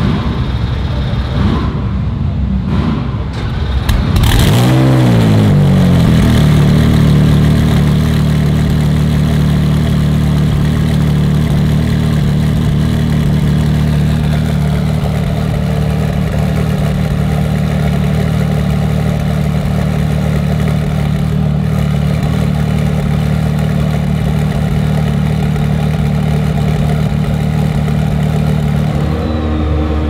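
Twin-turbocharged BMW GT3 race car engine warming up. It runs unevenly at first, picks up revs about four seconds in and holds a steady fast idle, then the engine note drops just before the end.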